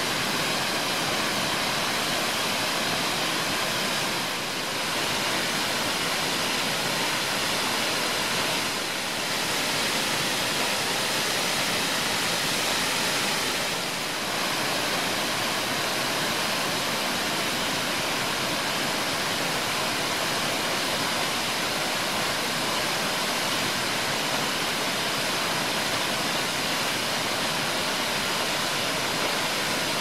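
Steady rushing roar of a large waterfall in full flow, swollen by days of rain, its sound a dense, even hiss with no breaks.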